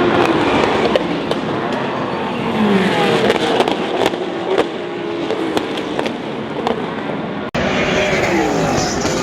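Several race cars passing at speed, their engine notes sliding down in pitch as each goes by, with sharp cracks throughout.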